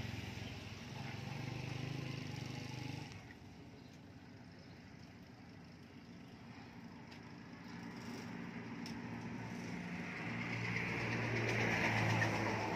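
Motor vehicle engine hum. It cuts off abruptly about three seconds in, then another engine grows louder over the last few seconds as a vehicle approaches and passes.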